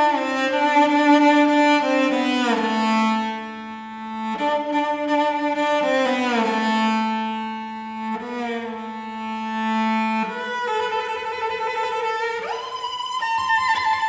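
Cello playing a slow melody of long bowed notes, sliding down into some of them, and moving up to higher notes near the end.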